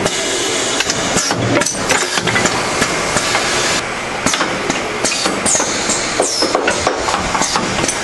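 Automated crimp and pick-and-place machine running its cycle: a steady run of mechanical clacks and knocks over loud, constant machinery noise, with a few short high squeals falling in pitch in the second half.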